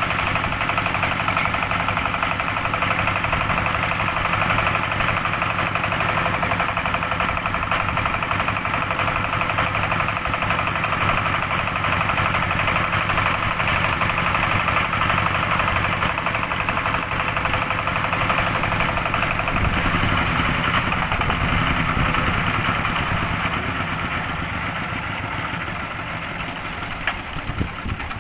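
Diesel engine of a rice threshing machine running steadily at a constant speed, fading away over the last few seconds.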